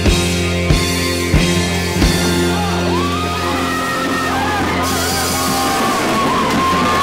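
Rock band music on electric guitars, bass and drums: four heavy accented hits about two-thirds of a second apart over a held chord. The chord is then left ringing under wavering high notes and yells, with a hissing wash over the last couple of seconds.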